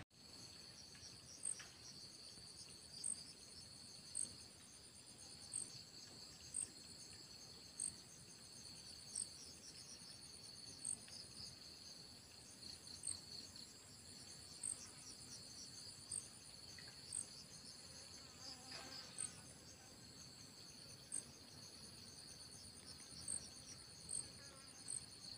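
Faint chorus of insects in the trees: a steady high-pitched drone with a short, sharp chirp repeating about every second and a half.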